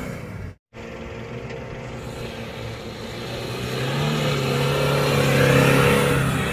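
Toyota Fortuner SUV engine revving hard as the wheels spin and slide through loose sand. The sound cuts out for a moment about half a second in, then the revs climb and peak a little past five seconds.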